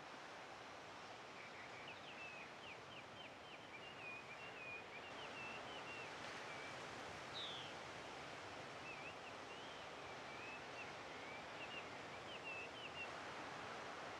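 Steady rush of ocean surf and wind, with a small bird singing over it in two runs of quick, high chirping phrases.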